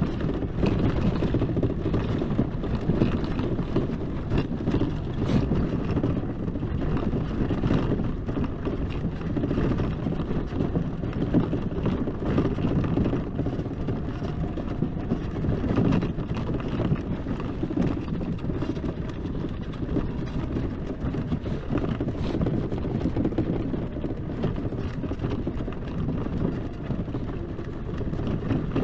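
Electric ATV riding over rough ground, with no engine note: a steady rumble from the tyres and chassis, full of small knocks and rattles, and wind on the microphone.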